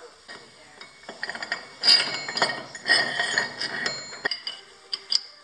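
Metal clinking and scraping as an LT-10M lathe spindle, with its gears, is slid by hand into the headstock bore. The clinks are loudest in the middle, and two sharp clicks follow about five seconds in.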